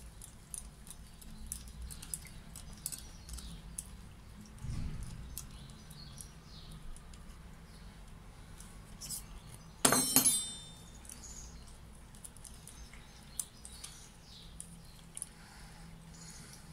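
Small metal parts of a Saffa 10 lighter clicking and scraping between the fingers as it is taken apart, with a brief, louder metallic clatter that rings about ten seconds in.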